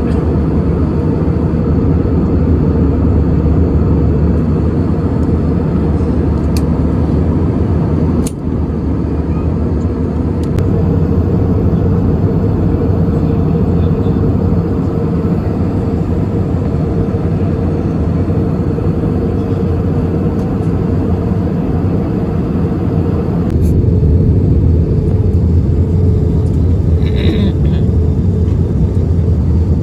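Airbus A320 airliner noise heard from the passenger cabin: a loud, steady rumble of jet engines and airflow with a steady hum. About 23 seconds in, the higher hiss drops away and the low rumble grows stronger.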